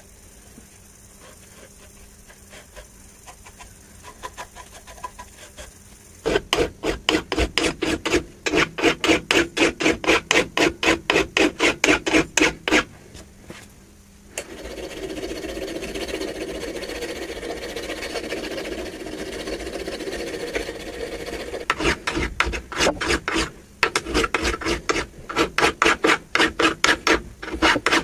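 A hand file rasping across the steel head of a small hatchet in quick, even strokes of about three a second, starting after a few seconds of faint handling taps. In the middle comes a stretch of continuous rubbing without breaks, and then the file strokes resume.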